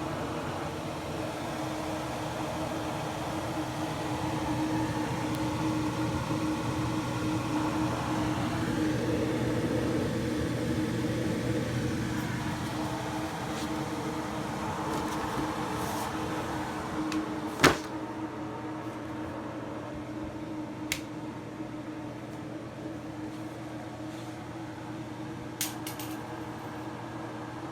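Steady mechanical hum, a little louder in the first half, with one sharp click about two-thirds of the way in and a couple of faint ticks after it.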